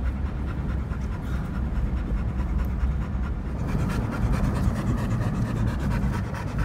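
A boxer dog panting inside the cab of a moving Ford Ranger pickup, over the truck's steady low engine and road rumble.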